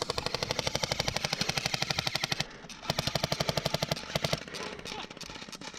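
Airsoft guns firing rapid full-auto bursts: one long burst, a short gap, a second burst, then scattered single shots near the end.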